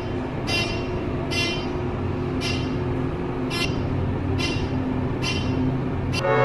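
Elevator car travelling: a steady mechanical hum with a short, high ringing tick about once a second.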